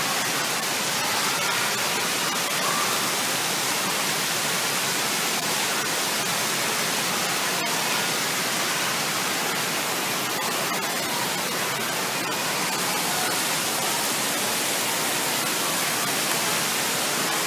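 Steady hiss of water jets spraying and splashing into a shallow pool.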